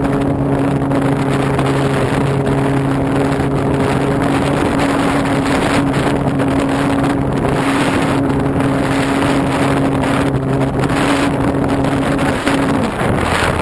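RC Pitts biplane's motor and propeller heard from an onboard camera in flight, running at a steady pitch under heavy wind rush on the microphone. The motor tone cuts off shortly before the end.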